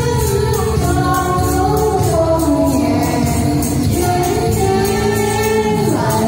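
A woman singing a melody into a microphone over a loud music backing track, with a tambourine jingling along in steady rhythm.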